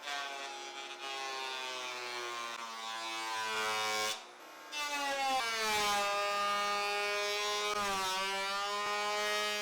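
Makita 2012NB portable thickness planer running as pine boards are fed through, the motor's pitch sagging under the cutting load. Two passes, with a short lull about four seconds in.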